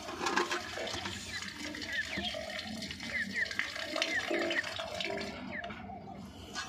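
Soaked rotis being squeezed by hand in a steel bowl: wet squelching with water dripping and splashing, to wring the water out of the bread. Small birds chirp over it, in short rising notes repeated throughout.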